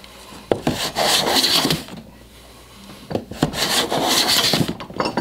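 Hand plane taking two long strokes along a softwood 2x6 board, flattening it and planing off the rounded edges. Each stroke is a rasping hiss about a second and a half long, with a short knock of the plane on the wood just before each stroke and another near the end.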